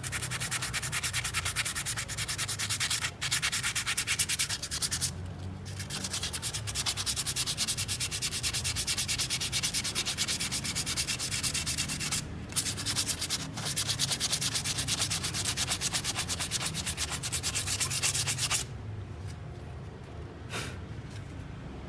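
Fast back-and-forth hand scrubbing or sanding on a Yamaha Mio CVT part to clean the dirt off it, with a few short pauses. The strokes stop about eighteen seconds in.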